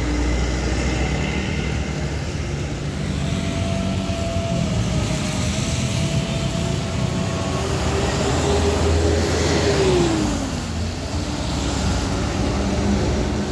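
Road traffic with big diesel coaches passing, a continuous low engine rumble among cars and motorbikes. About ten seconds in, a held tone falls in pitch.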